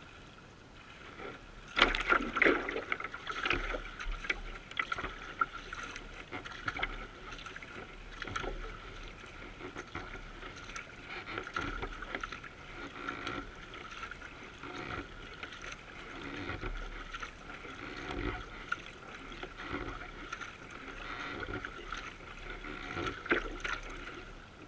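Water splashing and gurgling along a canoe's hull as it is paddled, close to the bow, with short surges roughly once a second as the strokes go in and a louder splash about two seconds in.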